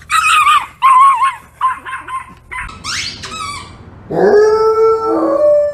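A string of short, wavering high-pitched cries. Then, about four seconds in, a golden retriever's long howl rises quickly into a held note and steps up in pitch near the end.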